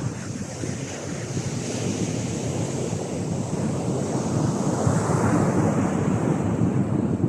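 Sea waves breaking and washing up a beach, a steady surf rush that swells as a wave comes in about five seconds in.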